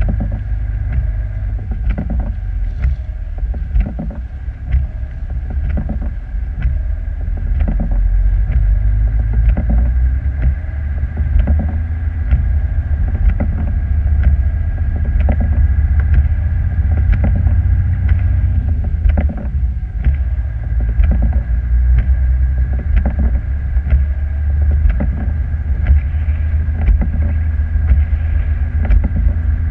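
Vehicle driving on a snow-covered road: a steady low engine and road rumble with a faint steady high whine, broken by frequent short irregular knocks.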